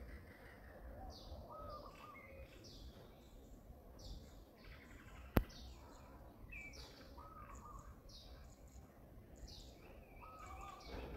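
Birds calling: short high chirps repeated about once a second, with a few lower warbled calls among them. A single sharp click a little past the middle stands out above them.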